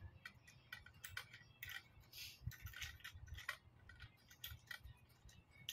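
Scattered light clicks and taps of a tripod stand's parts being handled and adjusted during assembly.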